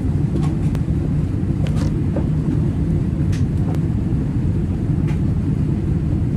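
Cabin noise aboard a Boeing 787-9 Dreamliner: a loud, steady low rumble of the jet engines and airflow, with a few light rattles.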